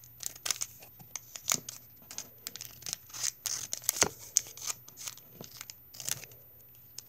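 Scissors snipping across the crimped top of a Pokémon trading card booster pack, an irregular run of short sharp snips with the foil wrapper crinkling.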